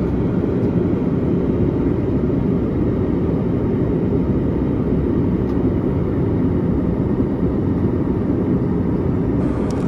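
Steady low roar of an airliner cabin in flight, engine and airflow noise with no breaks.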